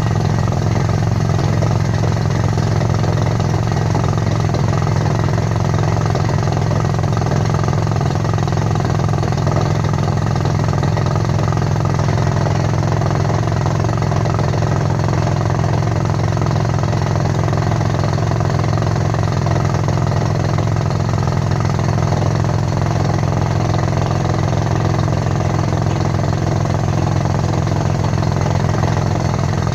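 Rock drilling machine running steadily while drilling into hard rock: a loud, constant low drone with a dense mechanical rattle above it, unbroken throughout.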